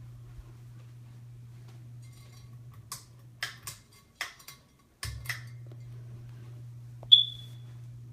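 Hampton Bay Antigua ceiling fan with a steady low motor hum. A run of sharp clicks comes in the middle, and the hum cuts out for about a second before starting again. Near the end there is a single bright ringing ping that fades quickly.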